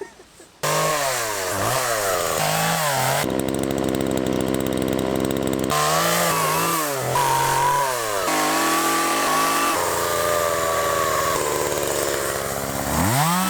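Small petrol chainsaw cutting through fallen willow wood, the engine revving up and down several times and then held at high revs for long stretches. Its pitch climbs sharply near the end.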